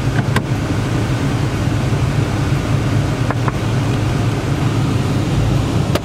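Car engine idling steadily, heard from inside the cabin, with a few faint clicks.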